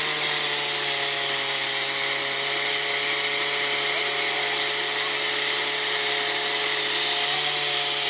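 Portable fire pump's engine running at a steady high speed, a constant engine note under a strong hiss, with a slight change in pitch about seven seconds in.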